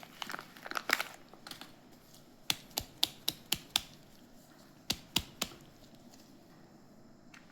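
Packaging crinkling in the first second, then sharp taps on a hard surface: a run of six quick taps, and three more a little later.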